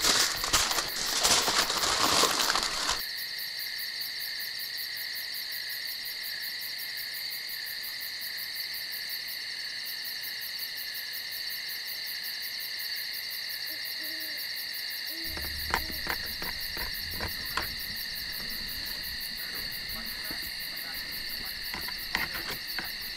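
Aluminium foil crinkling as it is folded around food, stopping about three seconds in. Then a steady chorus of night insects with a fine pulsing shimmer, a few faint low hoots near the middle, and from a little past the middle a low rumble with scattered clicks.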